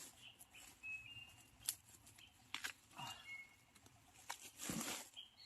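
Faint rustling and a few sharp snaps in bamboo undergrowth as shoots are picked, with a couple of short bird chirps.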